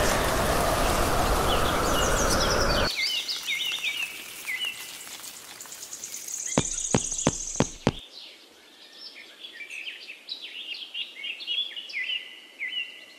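Small birds chirping and trilling over a loud steady hiss that cuts off abruptly about three seconds in. A few sharp clicks and a short high buzz come around the middle.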